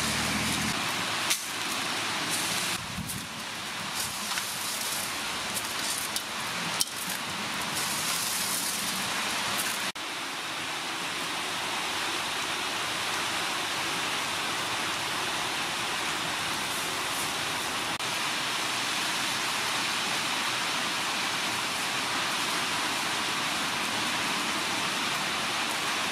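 Mung beans being rubbed and swished by hand in a metal basin of water, with small splashes and clicks. About ten seconds in, this gives way to a steady rushing hiss.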